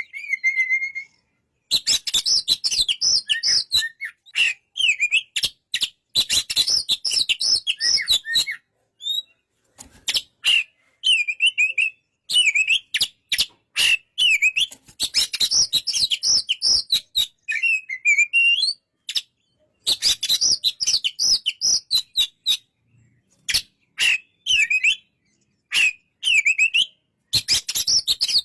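Oriental magpie-robin (kacer) singing: bursts of rapid, varied whistled and chattering phrases separated by short pauses.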